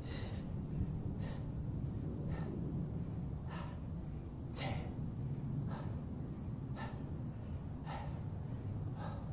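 A man breathing hard and heavily while doing bodyweight squats: a sharp, gasping breath about once a second, the laboured breathing of deep fatigue. A steady low rumble runs underneath.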